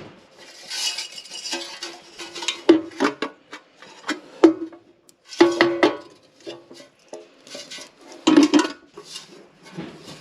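Sheet-metal furnace parts clanking and rattling as they are handled, with several sharp metallic knocks that ring on briefly.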